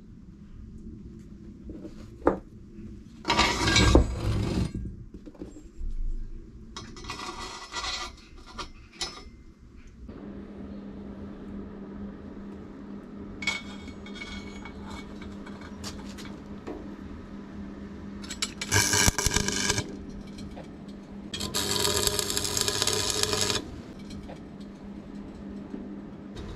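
Metal clinking and scraping: a sharp clink about two seconds in, then several rasping scrapes of one to two seconds each, with a steady low hum starting about halfway through.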